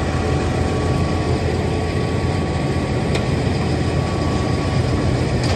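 Large truck-mounted wood chipper running under load, chewing through dry wood with a steady heavy drone. A few sharp knocks come through it.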